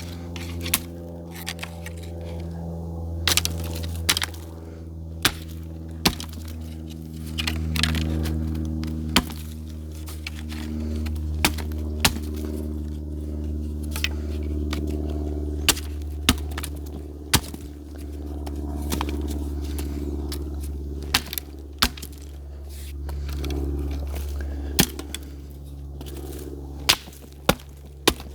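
Fiskars X11 hatchet chopping a small stick into kindling: a sharp crack every second or two as the blade strikes and splits wood, about twenty strikes in all, over a steady low hum.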